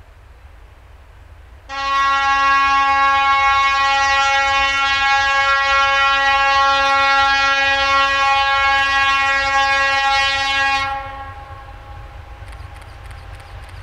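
T458-1509 diesel locomotive sounding its horn: one long steady single-tone blast of about nine seconds that cuts off and briefly echoes away, over a low rumble. The blast is given on approach to a level crossing.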